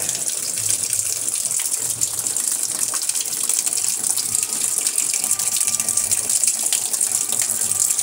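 Water pouring from the inlet into the drum of a top-loading automatic washing machine, a steady splashing rush as the machine fills to its low water-level setting before the wash.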